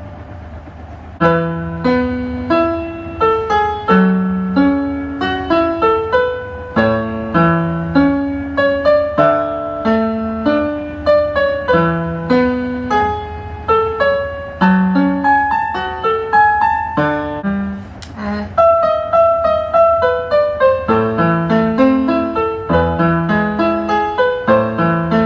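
Portable electronic keyboard played with a piano sound: a melody over a pattern of lower notes, each note struck and dying away, starting about a second in. A short click about eighteen seconds in.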